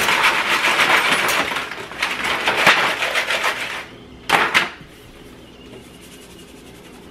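Salt pouring from a cylindrical salt canister onto fries in foil pans, a granular hiss in two long spells over the first four seconds and one short spell about four and a half seconds in.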